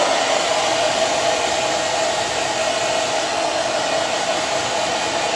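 Conventional hand-held hair dryer running, a steady, so-loud rush of air with a hum from its fan motor.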